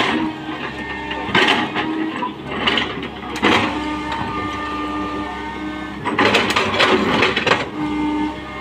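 Tata Hitachi 120H excavator working: its engine and hydraulics run with a steady whine, and there are several bursts of rough noise from the bucket loading.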